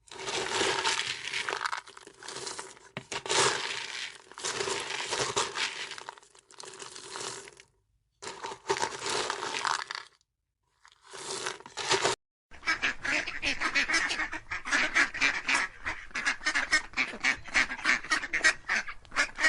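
Waterfowl calling in short clips separated by brief silent cuts. In the second half a flock calls rapidly, several short honking calls a second.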